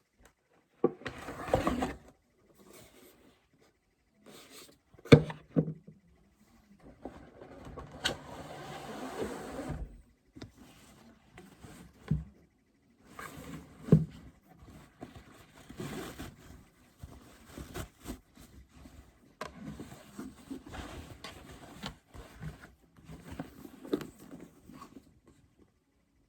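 Hands unpacking a handbag from its box and wrapping: paper and card rustling and sliding, with sharp knocks and taps scattered throughout, the loudest about five seconds in and again about fourteen seconds in.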